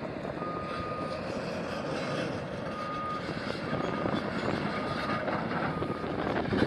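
A backup alarm beeping about once a second over the steady running noise of heavy demolition machinery.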